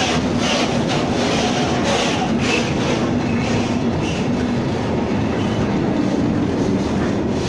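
Open high-sided freight wagons of a slow freight train rolling past close by: a steady rumble of steel wheels on rail, broken by irregular clacks as the wheels cross rail joints.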